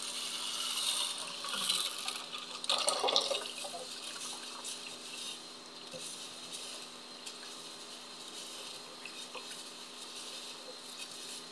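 Tap water running into a bowl of mung beans in a sink, stopping after three or four seconds. A hand then swishes and rubs the beans in the water, with small clicks, rinsing them before they are soaked.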